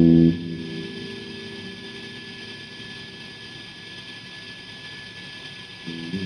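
Guitar: a strummed chord rings out and fades, leaving a low, uneven sustain over a steady hiss, and new notes are struck near the end.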